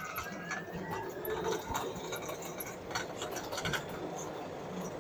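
Tyres of an electric-converted Polaris RZR side-by-side rolling on pavement, a steady road noise with a few light clicks and rattles. No engine is heard: the wheel noise is about all the electric drive lets through.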